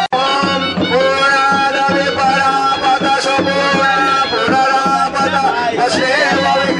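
Indian devotional music with a melody of long, slightly wavering held notes. The sound drops out for an instant just at the start.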